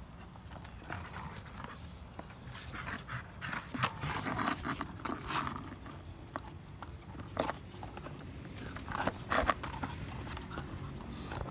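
Pit bull puppy playing with a bicycle tyre hung on a rope: paws scuffling, and the tyre scraping and knocking on the stone ground as the puppy grabs and tugs it, with a few sharper knocks near the end.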